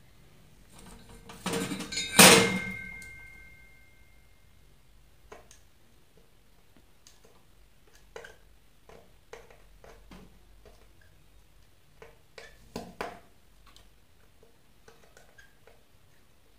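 Small metal tools and parts being handled on a wooden workbench during soldering. A clattering metal clink about two seconds in rings briefly, and scattered light taps and clicks follow, with a couple of louder knocks later on.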